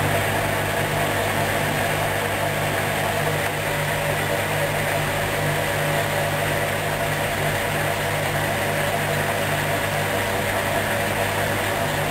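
Hoover DYN 10124DP washing machine running with a steady low hum from its motor and drum.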